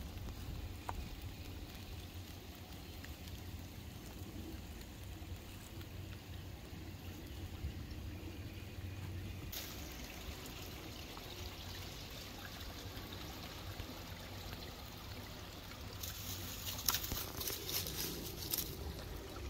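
Shallow creek water trickling over rocks. Near the end comes a few seconds of crackling rustle from dry leaves and grass as a northern water snake is grabbed from among them.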